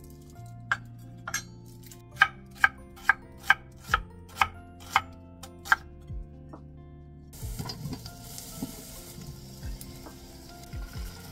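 Kitchen knife slicing an onion on a wooden cutting board: about ten sharp chops, roughly two a second. Then onions sizzling as they fry in butter, with a couple of knocks near the end as sweet potato chunks are scraped into the pot.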